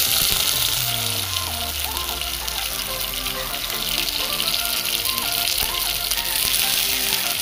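Chopped kantola (spiny gourd) frying in hot oil in a pot, a steady sizzle. Background music with a melody plays over it.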